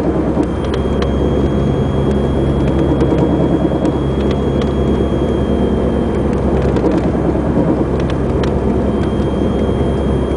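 Chevrolet Cavalier heard from inside the cabin while driving: steady engine and road drone, with a thin high whine that fades out about two-thirds through and returns near the end, and a few faint clicks.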